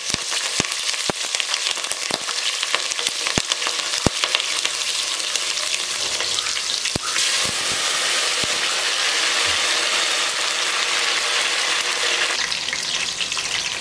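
Slit green chillies and whole spices sizzling in hot oil in a stainless steel pot, a steady hiss with scattered sharp pops and crackles. Near the end fresh mint leaves are added and the sizzle changes.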